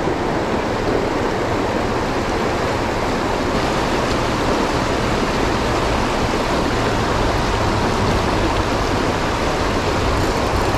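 River water rushing steadily, an even, unbroken rush with no change in level.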